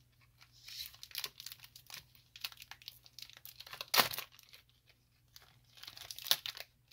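Foil wrapper of a Pokémon trading-card booster pack being crinkled and torn open by hand. About four seconds in there is one sharp knock as the camera is bumped.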